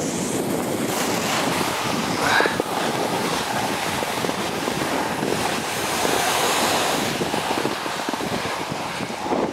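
Wind rushing over the microphone during a downhill ski run, with the steady hiss and scrape of skis sliding over packed, groomed snow.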